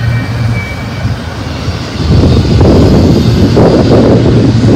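Double-stack intermodal freight train rolling past close by: a steady low rumble of the wheels on the rails, which turns much louder and rougher about two seconds in.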